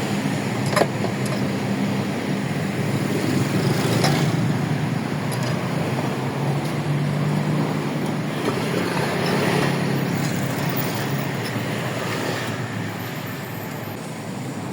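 Road traffic and car engine noise, a steady rush with a low hum, broken by a sharp knock about a second in and a fainter one a few seconds later.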